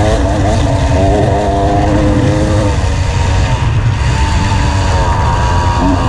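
Off-road motorcycle engine running hard at speed, its pitch dipping and then climbing again with the throttle and gears, over heavy low wind rush on the helmet-camera microphone.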